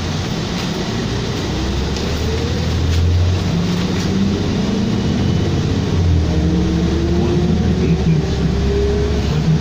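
Interior sound of a 2007 New Flyer D40LFR diesel bus under way: the engine hums steadily and a whine rises in pitch twice as the bus drives along.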